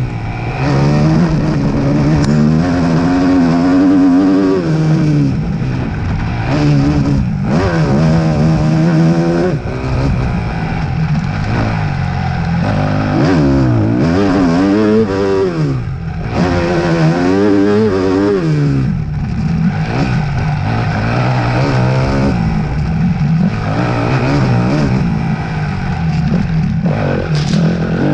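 Racing engine revving hard, its pitch climbing and then dropping back over and over as it accelerates down straights and backs off for corners during a race lap.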